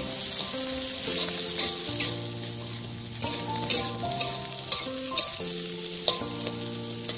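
Scrambled egg and mustard-green stems sizzling in a hot steel wok, stirred and tossed with a metal spatula that scrapes and ticks against the pan many times. Steady held tones sit underneath, changing pitch in steps.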